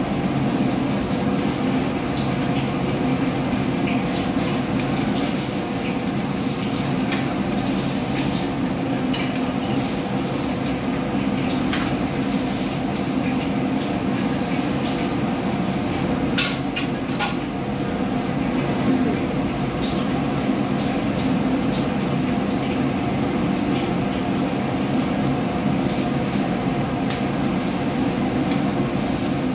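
Steady noise of gas wok burners and the kitchen extractor hood, with a metal ladle stirring lomi broth in a steel wok and clinking against the pan now and then, most sharply twice a little past halfway.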